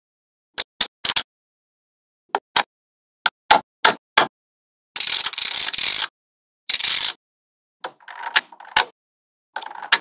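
Small magnetic balls clicking sharply together as ball panels and strips are snapped into place, a few separate clicks at a time. About five seconds in comes a second-long rattling scrape of balls sliding against each other, a shorter one near seven seconds, and then softer clustered clicking.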